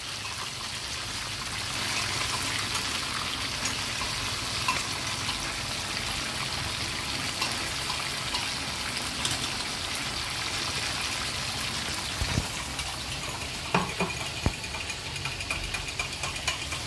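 Chicken pieces deep-frying in hot oil in an iron wok: a steady sizzle full of fine crackling, frying crisply. A few sharp clicks come about twelve to fourteen seconds in.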